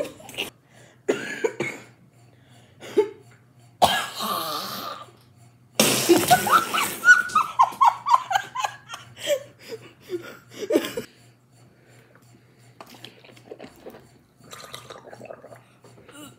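Two kids laughing hard, with coughs and splutters. About six seconds in, a loud fit of giggling breaks into rapid 'ha-ha' pulses falling in pitch for several seconds, then fades to faint giggles.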